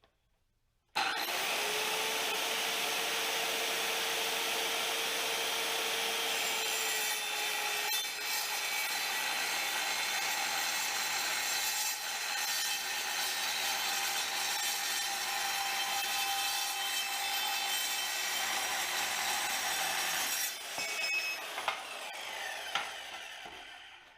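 Evolution S185 7¼-inch metal-cutting circular saw, fitted with a 40-tooth carbide blade, cutting mild steel. It starts suddenly about a second in and runs steadily for about nineteen seconds. It then turns quieter and uneven, and fades out near the end as the cut finishes and the saw winds down.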